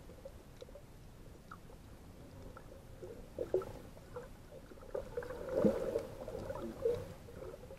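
Faint, muffled gurgling and bubbling of water around a snorkeler's camera, with scattered small blips that grow denser and louder about two thirds of the way in.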